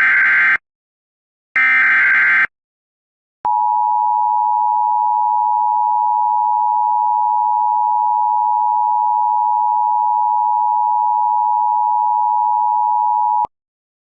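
Emergency Alert System signal: two bursts of SAME header data, each about a second of rasping digital warble and a second apart. They are followed by about ten seconds of the steady two-tone EAS attention signal, which cuts off abruptly. The sequence marks the start of a new alert, here the all-clear.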